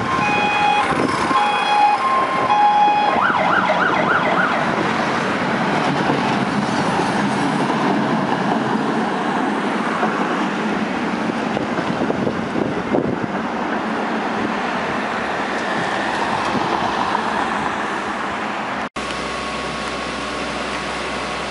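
Fire engine siren sounding a two-tone hi-lo pattern, switching briefly to a fast yelping pulse, as the MAN TGL 12.240 fire truck approaches with its diesel engine running. Near the end the stopped truck's engine runs steadily with a faint steady tone.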